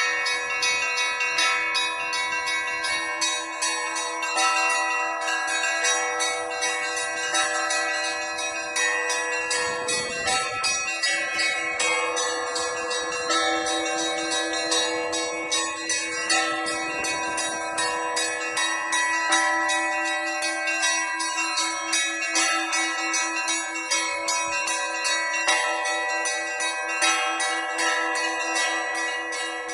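Church bells rung by hand in a bell tower: a fast, continuous run of strikes on the smaller bells over the steady hum of a larger bell, all the bell tones ringing on together.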